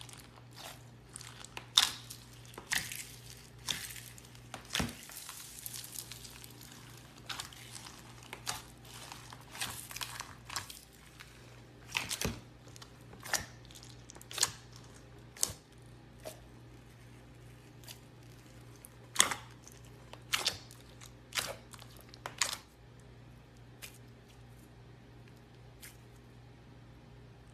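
Hands squishing and stretching clear slime, with irregular sharp pops and clicks as air pockets burst, over a steady low hum.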